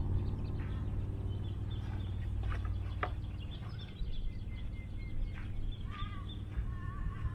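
Birds chirping and calling, with short wavering whistles near the end, over a steady low rumble; a couple of sharp clicks about two and a half to three seconds in.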